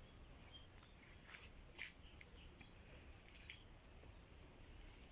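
Near-silent outdoor ambience: a faint steady high-pitched hum throughout, with a few faint short chirps and clicks.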